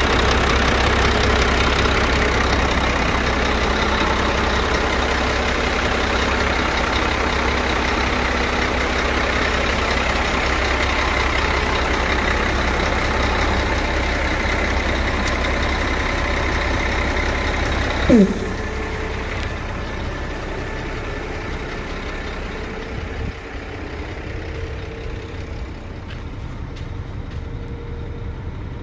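Scania P114 dump truck's 11-litre six-cylinder diesel running steadily at idle. About eighteen seconds in there is a brief sharp sound falling quickly in pitch, and after it the engine sound is somewhat quieter.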